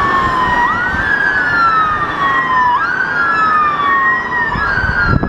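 Emergency-vehicle siren wailing, with overlapping tones that glide slowly in pitch and snap back about every two seconds; it cuts off abruptly.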